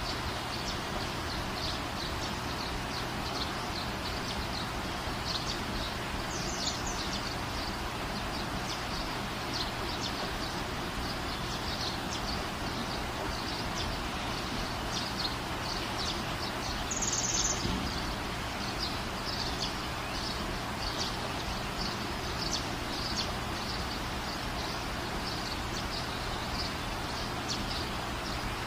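Steady background hiss with many short, high chirps scattered throughout, and one brief louder, higher chirp about seventeen seconds in.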